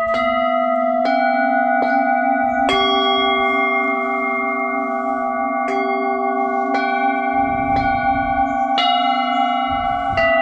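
A set of full-moon singing bowls, 7 to 9 inches across and each tuned to its own note (F sharp, G sharp, A, D sharp), struck one after another with a padded mallet. Each strike brings in a new ringing tone that layers over those still sounding, about seven strikes in all.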